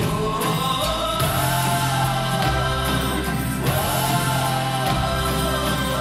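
A song with singing over held bass notes, played through a pair of Canton Plus XL compact speakers.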